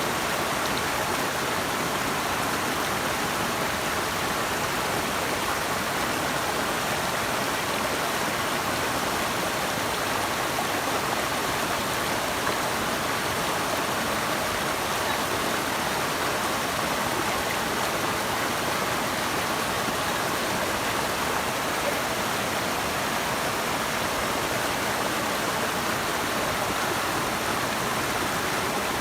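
Steady rush of flowing water from a stream or waterfall, even and unbroken throughout.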